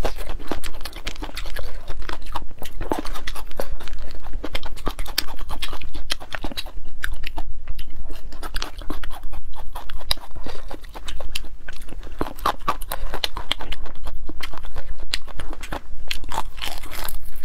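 Close-miked crunchy chewing of crispy fried food: a dense run of crackling crunches, broken by a few short pauses.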